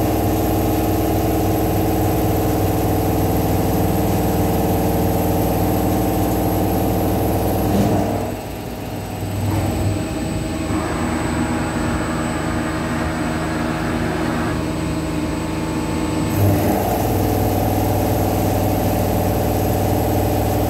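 CNC vertical machining centre milling a steel block, a steady machine whine of several fixed tones from the cutter and spindle. About eight seconds in the sound drops and changes as the cutter moves off the workpiece and the table traverses. The steady cutting sound returns about eight seconds later.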